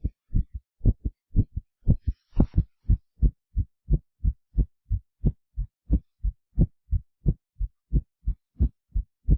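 Heartbeat sound effect: a fast, even train of short low thumps, about three a second. A brief hiss about two and a half seconds in marks the change from one heartbeat recording to the next.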